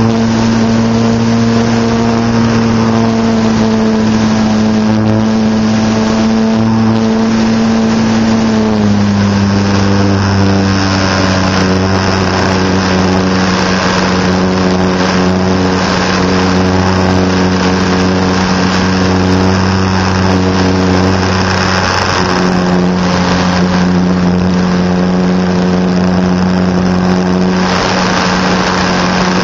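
An RC model airplane's motor and propeller running steadily, heard from a camera aboard the plane. Its pitch drops slightly about nine seconds in and again a little after twenty seconds, over a steady hiss of airflow.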